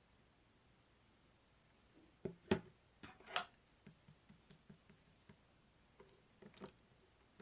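Slime being pressed and poked by hand, giving faint, irregular small clicks and soft pops that start about two seconds in, with two louder pops near the middle.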